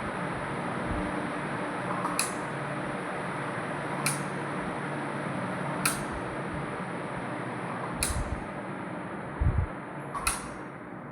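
Ceiling fan running with a steady whoosh and a thin high whine, a sharp click recurring about every two seconds. A couple of low thumps come near the end.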